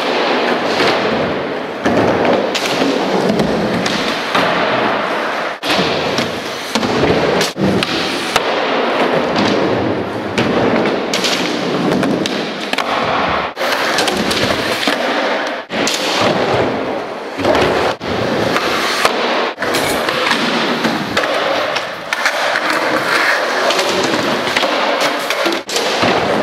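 Skateboard wheels rolling loudly over plywood ramps and concrete, with sharp clacks and slaps of the board, cut off abruptly and restarting several times.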